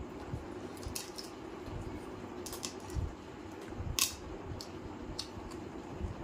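A person eating a curry meal with his hands: wet, squishy chewing with a few sharp mouth clicks, the loudest about four seconds in, over a steady background hum.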